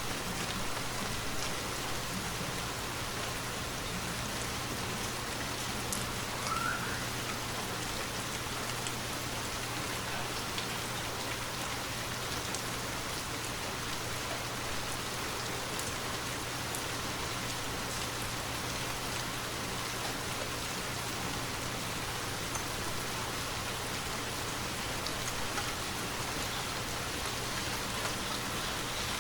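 Steady rainfall: an even hiss with scattered individual drop ticks and no thunder.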